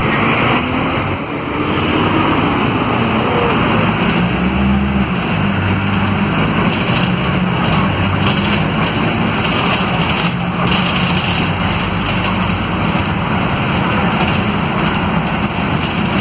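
Inside a Marcopolo Gran Viale city bus under way: its diesel engine runs steadily under the road and cabin noise, its pitch rising and falling in the first few seconds, with a few brief knocks.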